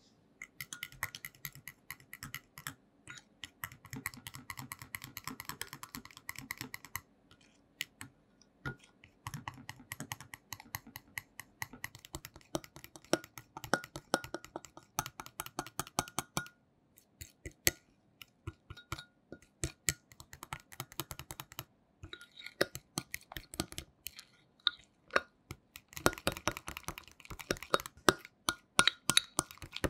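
A utensil beating a mixture by hand in a bowl: rapid clicks against the bowl in runs of several seconds with short pauses, the bowl ringing faintly.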